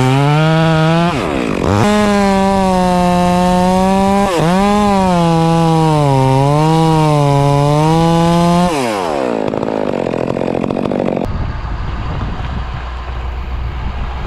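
Large chainsaw with a 36-inch bar running at full throttle in a cut through a big hollow trunk. Its engine pitch sags and recovers as the chain loads, with two short dips in revs. About nine seconds in the throttle is let off and the engine winds down, leaving a lower, rougher noise.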